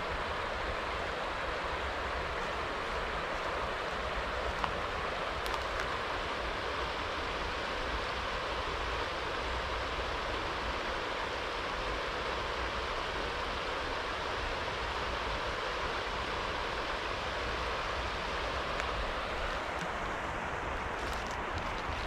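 Steady rush of flowing water from a stream or river, even and unbroken, with a low rumble underneath. A few light clicks come in near the end.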